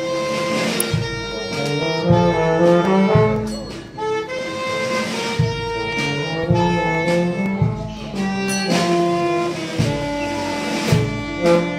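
Brass band playing a slow march, with saxophones and horns carrying the tune over a bass drum beating about once a second.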